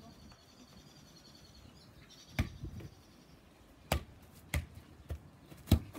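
A soccer ball being juggled, kicked up repeatedly off a bare foot and knee: five sharp thuds about every half second, starting about two seconds in.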